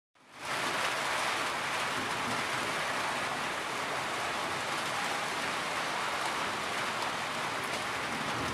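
Steady rain falling, fading in over about half a second at the start.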